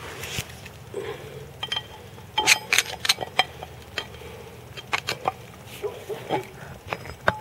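Irregular sharp metallic clinks and knocks, a dozen or so, thickest and loudest a little past two seconds in, from metal tools or parts being handled over a faint steady low hum.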